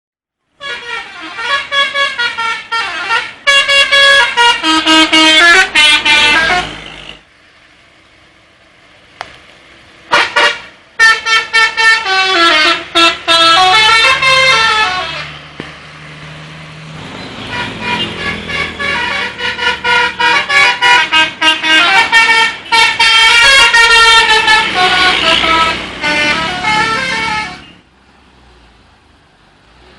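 Indonesian bus 'telolet' horns: multi-tone musical horns sounding quick runs of notes like a little tune. They come in three long stretches with short quieter pauses between, one around eight seconds in and another near the end.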